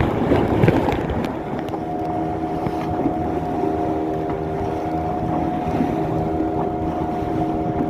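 Fishing boat's outboard motor running at a steady pitch, with wind on the microphone.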